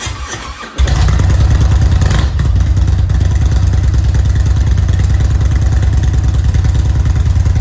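Motorcycle engine running with a loud, deep, rapidly pulsing rumble, starting about a second in and holding steady.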